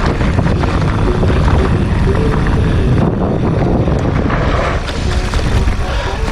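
Mountain bike rolling fast over a rough dirt trail: wind buffeting the camera microphone with the rumble and rattle of tyres and frame on the ground, easing a little near the end.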